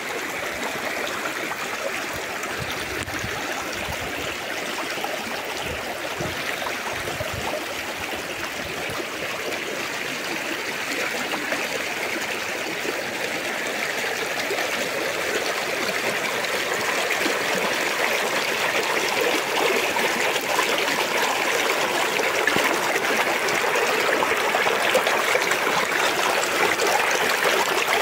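Shallow rocky river flowing fast over stones: a steady rushing and gurgling of water that grows gradually louder through the second half.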